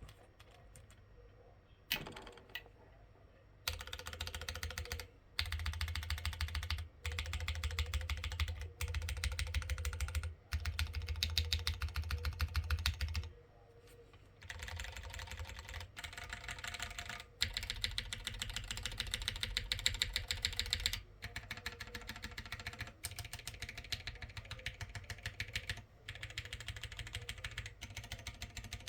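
Typing on a plateless custom mechanical keyboard with lubed TKC Dragonfruit light tactile switches and PBT keycaps: quick runs of keystrokes with a deep bottom-out, broken by short pauses, one longer gap near the middle. The uploader hears a full sound that covers the board's hollowness but comes out a bit dull, with a slightly weak spacebar.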